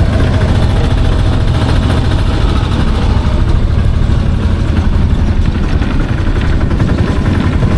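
Taxi engine running steadily as the car drives along, heard from on board: a loud, even low drone with road noise.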